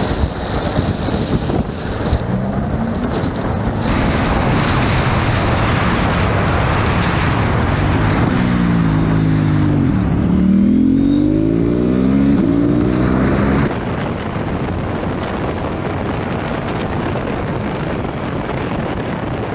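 Motorcycle riding sound from on-bike cameras: wind rush and a running engine, changing abruptly a few times. In the middle the engine's revs drop steeply and then climb again.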